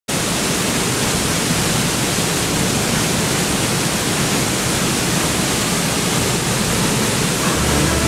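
Mountain waterfall fed by snowmelt, pouring into its plunge pool as a steady, even rush of water. Music comes in near the end.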